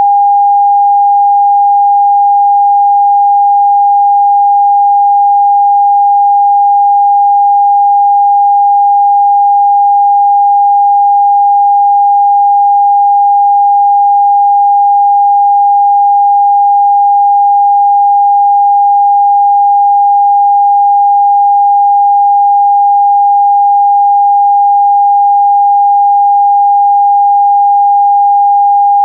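Broadcast test tone accompanying the PM5544 test card: a single pure, steady tone held at one unchanging pitch without a break.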